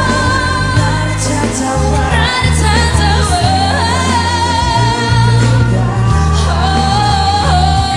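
Live pop ballad: a female lead singer singing over a full band, with backing vocalists.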